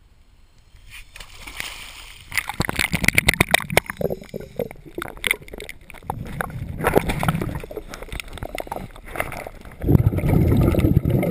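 Underwater water sound on a diver's camera: sloshing and gurgling with many small clicks and knocks. Near the end comes a louder low rush of bubbles, the exhaust from his scuba regulator.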